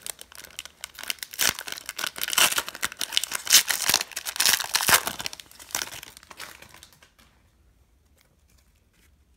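Foil wrapper of a trading-card pack being torn open and crinkled by hand, a dense crackling that stops about seven seconds in.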